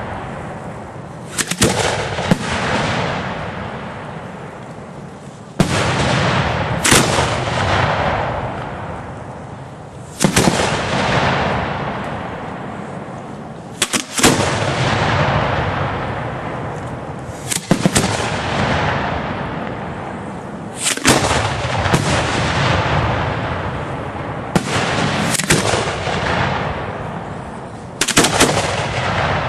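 Professional aerial firework shells launching from mortars and bursting overhead. The loud, sharp reports come about every three to four seconds, often in quick pairs, and each leaves a long rumbling echo that slowly fades.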